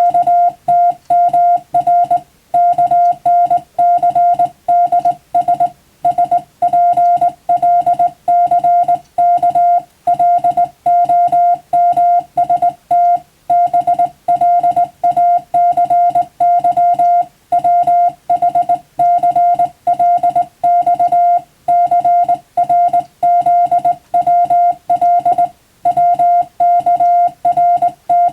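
Morse code: a single steady-pitched beep keyed rapidly on and off in short and long elements, with brief pauses between letter groups.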